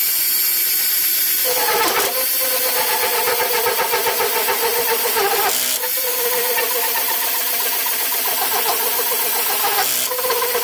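Cordless drill running a hole saw into old timber, the motor whining steadily under load over the hiss of the saw's teeth cutting, with brief changes in pitch around two, six and ten seconds in. The cut is going slowly, enough that a corded electric drill is called for next.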